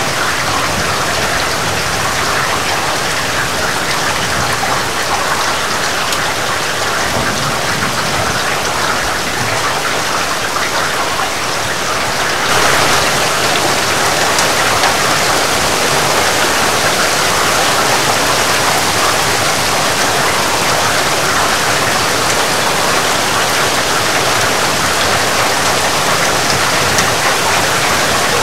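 Heavy rain falling steadily as an even hiss. About halfway through, the hiss abruptly turns brighter and a little louder.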